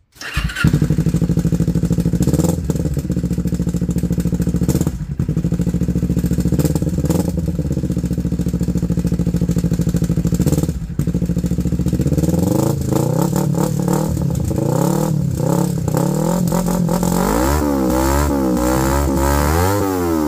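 Kawasaki Ninja 250 parallel-twin engine running through an aftermarket iStunt slip-on muffler: it starts right at the beginning and idles steadily, then is revved from about twelve seconds in, with quick repeated revs near the end. Something still rattles around inside the muffler, which does not bolt up properly.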